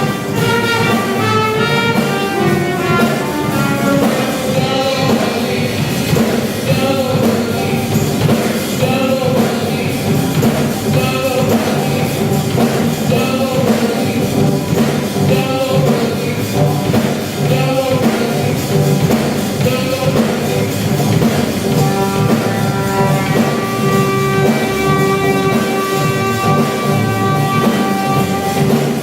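Live band with a horn section and drum kit playing a funk number, with long held horn notes toward the end.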